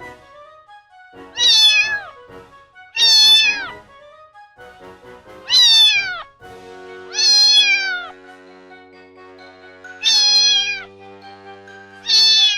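Domestic cat meowing six times, each meow falling in pitch, over soft background music.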